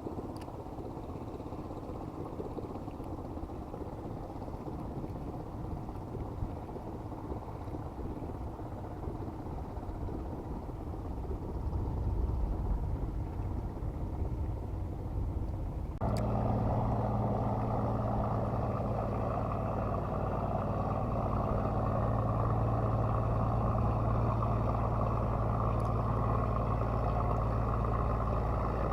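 A rushing noise, then about halfway in a steady low engine hum cuts in suddenly and runs on evenly: a boat motor running.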